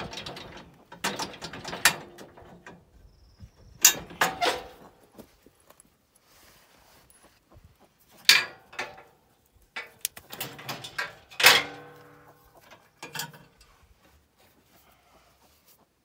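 Metal clinks, scrapes and rattles from the front plow mount of a Honda 500 side-by-side as a rope is worked through it and a shackle is hooked on. The sounds come in irregular bursts with quiet gaps between them.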